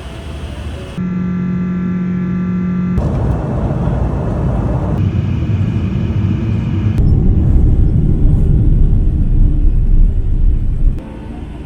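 Jet airliner noise in a string of abruptly cut clips: a steady engine tone with overtones, then a loud low rumble that stops suddenly near the end.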